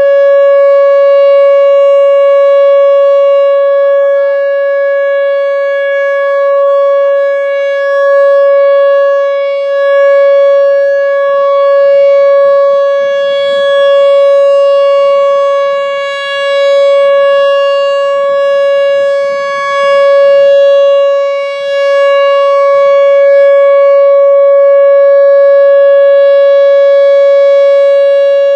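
Whelen Vortex R4 outdoor warning siren sounding a steady alert tone at full pitch, the wind-up already finished, rather than a wail. Its pitch holds steady while the loudness swells and dips every few seconds.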